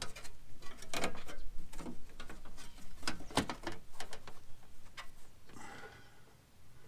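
Irregular clicks and light metallic knocks from hand work on an aluminum inner fender panel and its mounting bolt as it is fitted into place.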